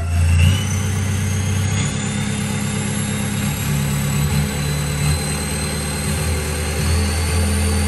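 Toyota Revo 2.8 four-cylinder turbodiesel running, with a thin high turbo whistle over the engine note that climbs slowly in pitch. The factory turbocharger has been modified to whistle.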